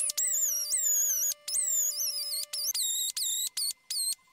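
Air die grinder whining at high speed with a small abrasive disc pressed against a hardened steel knife blade, grinding off the black heat-treat scale. The whine dips in pitch each time the disc bites, then recovers, and it stops and starts in about ten short bursts.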